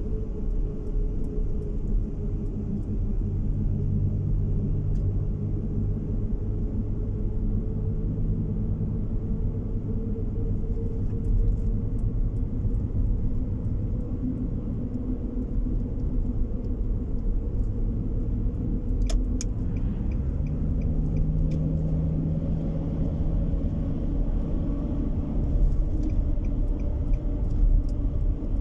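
Car on the move: a steady low rumble of engine and road noise, with the engine note shifting a little and a few faint ticks.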